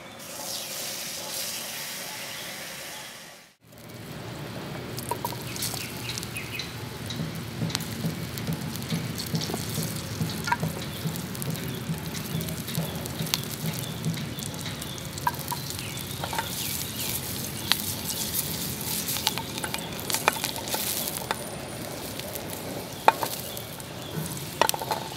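Garlic cloves sizzling in hot oil in a small frying pan, a steady hiss with scattered crackles and pops, broken by a brief dropout a few seconds in.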